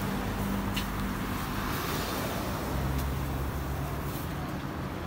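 Roadside traffic ambience: a steady low engine hum over road noise.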